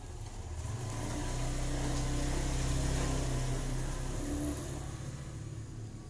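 A motor vehicle passing by, its low engine hum swelling to its loudest about halfway through and then fading.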